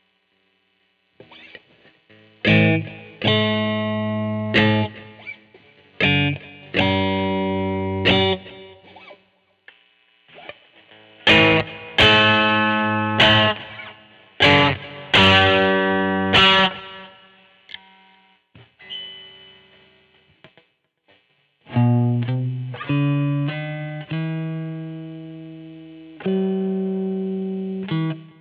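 Electric guitar, a 1994 Mexican-made Fender Stratocaster with GFS Jimi reverse pickups, played as a series of struck chords, each left to ring for a second or two with short gaps between. In the last third, a few lower notes are played.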